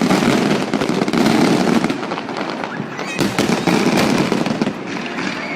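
Aerial fireworks going off with dense crackling: a burst at the start and another about three seconds in, the crackle thinning out near the end.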